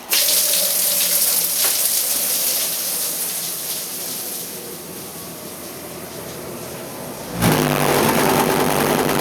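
Water rushing through a Takagi gas tankless water heater with a hot tap running, a steady hiss. About seven seconds in it grows louder and a low steady hum joins it.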